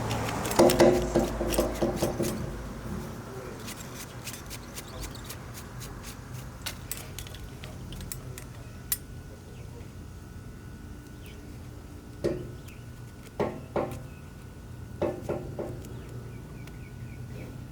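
Light clicks, taps and clatter of fuel pump and sending unit parts being handled and pressed into place, with a few sharper knocks in the second half.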